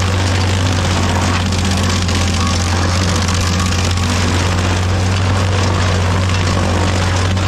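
An engine running steadily at one speed, with a deep unchanging hum.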